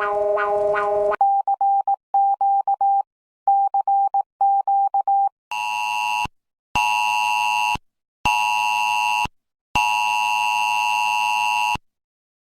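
Disaster alert tones: a pulsing siren-like tone ends about a second in, then come four quick groups of short high beeps, then four long electronic tones with short gaps, the last held about twice as long.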